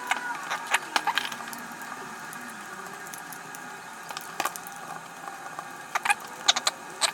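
Small plastic parts of a handheld drone remote controller being handled and fitted together during reassembly: scattered sharp clicks and light rattles, a cluster in the first second or so and a few more in the last couple of seconds.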